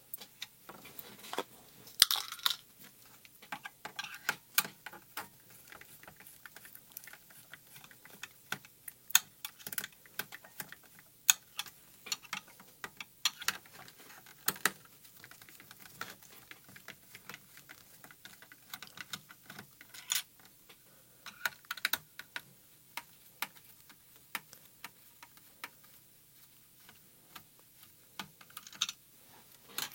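Small clicks, taps and scrapes of a screwdriver working out the screws of a plastic radio-controller case, with the case being handled. The clicks come irregularly, a few seconds apart.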